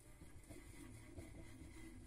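Near silence: room tone with a steady low hum and a few faint ticks.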